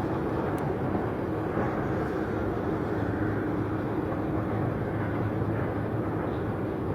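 Jet airliner engines: a steady noise with a faint low hum that holds an even level.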